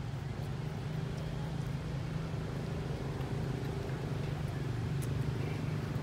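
A steady low mechanical hum, constant throughout, with a few faint ticks near the end.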